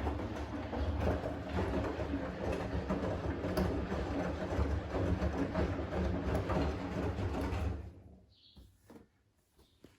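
Siemens front-loading washing machine in its main wash: the motor turning the drum and the wet laundry tumbling and sloshing, a steady low churning that stops about eight seconds in as the drum pauses.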